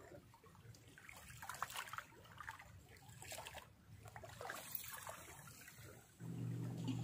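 Faint trickling and lapping of calm seawater at the water's edge. About six seconds in, a low steady hum starts.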